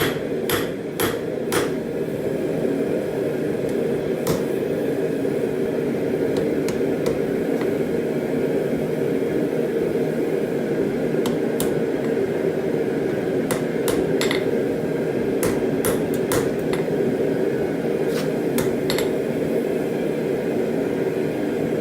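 Hammer blows ringing on steel, a few quick strikes in the first two seconds and scattered lighter hits after, over a steady low hum of shop equipment.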